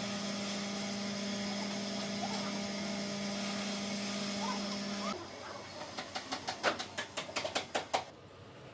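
A steady hum with a constant low tone that stops abruptly about five seconds in. A quick run of about a dozen sharp taps follows, about five a second.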